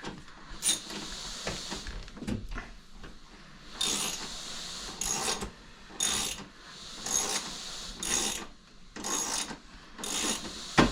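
Ratchet wrench backing a lag screw out of a TV wall mount: a few scattered clicks, then regular ratcheting strokes about once a second from a third of the way in. The screw is thought to have hit a metal plate behind the drywall.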